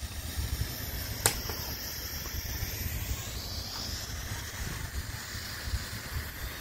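Steady low outdoor background rumble with faint hiss, and a single sharp click about a second in.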